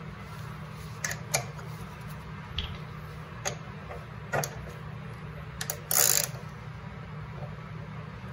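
Scattered light clicks and taps of metal fasteners and a hand tool as bolts are fitted by hand to a Polaris snowmobile's chain case, with a short rasp about six seconds in. A steady low hum runs underneath.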